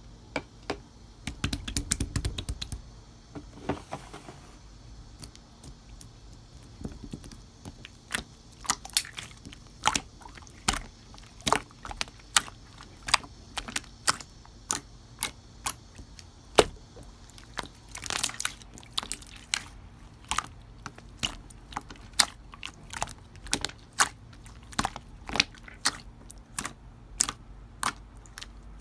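Slime being pressed and worked by hand, giving a run of sharp clicks and pops about one or two a second, with a low rumble of handling in the first few seconds.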